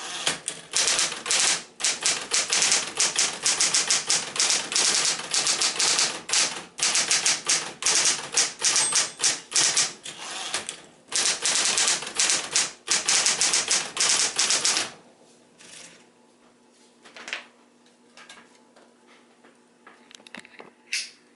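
Smith-Corona Coronet Electric 12 electric typewriter being typed on very fast, a dense run of key strikes with brief pauses. About three-quarters of the way through the typing stops, leaving a low steady hum and a few scattered clicks.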